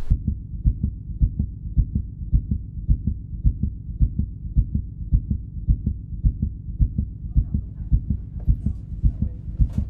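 A heartbeat: a steady, fast run of low thuds, with faint higher sounds creeping in near the end.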